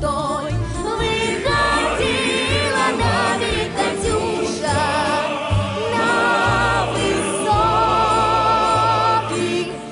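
Background music: a choir singing held, wavering notes over instrumental accompaniment with a steady bass.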